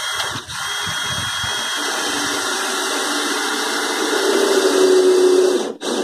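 Cordless drill running for about six seconds, driving a screw into the wooden hutch frame. It grows louder over the last couple of seconds and stops abruptly near the end.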